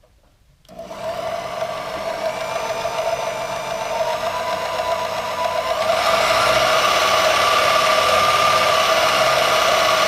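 Variable-speed portable band saw switched on about a second in, its motor and blade running with a steady whine. About six seconds in it gets louder and a higher tone joins.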